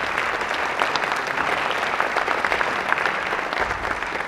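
Audience applauding, a steady patter of many hands clapping at once.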